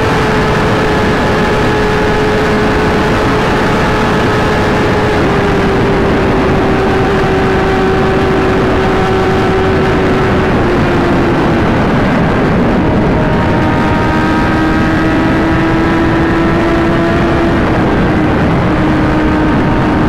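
Inline-four sportbike engine cruising at highway speed under heavy wind rush, its pitch sagging slowly and dropping a step about halfway through, then holding steady.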